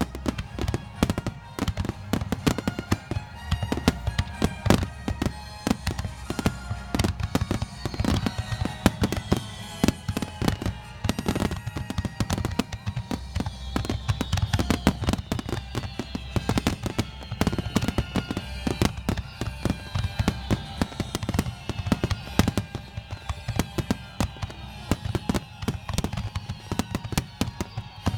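Fireworks display: shells bursting in a dense, continuous barrage with crackling, joined from about eight seconds in by repeated falling whistles. Music with a steady bass plays underneath.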